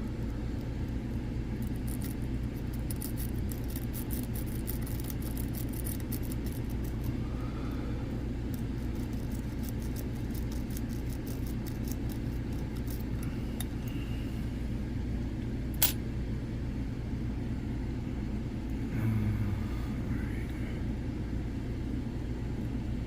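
Rapid, light metallic clicking of a lock pick raking across the pins of a Segal mortise cylinder fitted with spool and serrated security pins, densest in the first several seconds, with one sharper click later. The cylinder does not rake open. A steady low hum sits underneath.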